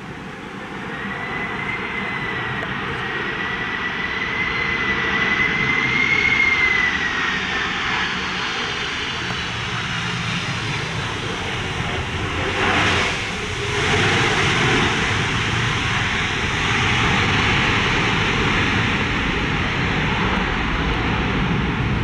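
Boeing 767 airliner's twin jet engines on landing approach: a high whine that wavers and grows louder as the aircraft nears. After touchdown, about twelve seconds in, a broad, louder engine roar as the plane rolls out on the wet runway throwing up spray.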